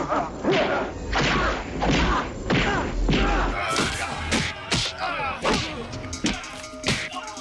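Action-film fight sound effects: a rapid run of punch and kick hits, thuds and whacks coming about two to three a second.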